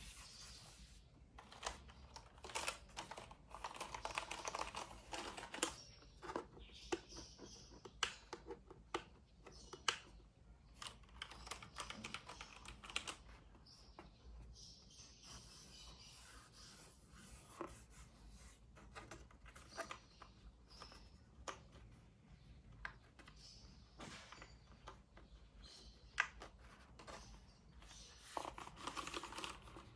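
Quiet unboxing sounds: packaging rustling and crinkling, with irregular clicks and knocks as parts are handled.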